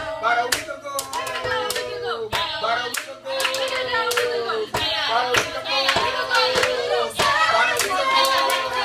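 A group of performers in a Circle of Sound ensemble exercise, clapping or slapping a rhythm of sharp strikes while several voices sing and hum overlapping held notes and sliding tones.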